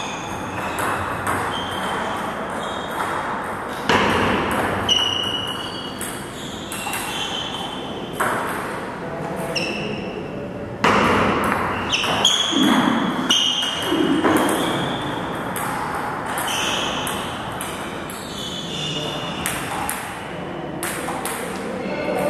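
Table tennis ball being hit back and forth in rallies: quick runs of sharp ticks off the bats and bounces on the table, each with a short high ping, broken by brief pauses between points.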